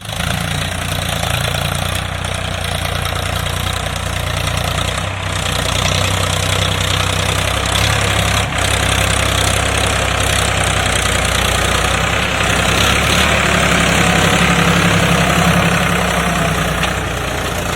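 Farm tractor's diesel engine running steadily, a low drone with a dense mechanical noise above it, briefly dipping twice, about five and eight and a half seconds in.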